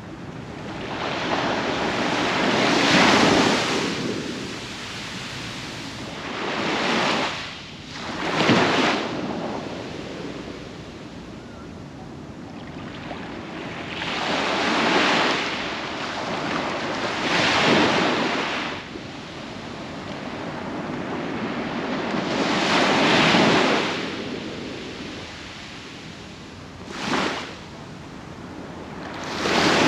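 Sea waves breaking and washing up on a sandy beach. About eight surges swell and fade, a few seconds apart, with a softer steady wash between them.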